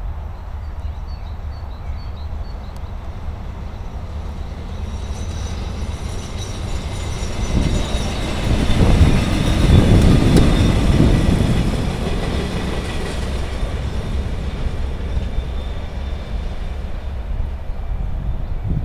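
A small yellow rail work vehicle with a loading crane, hauling flat wagons, passes by on the track. Its running sound grows, is loudest about ten seconds in with some thin high-pitched ringing from the rails and wheels, then fades as it moves away.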